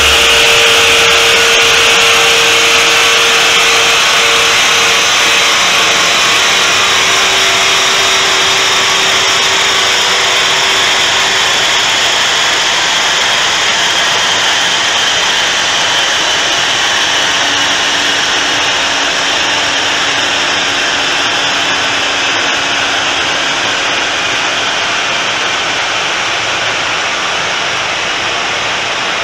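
Rolling-road dyno coasting down after a power pull on a Vauxhall Astra H VXR: the rollers and driven wheels spin down with a steady loud rush and a faint whine that falls slowly in pitch, the whole sound easing off gradually.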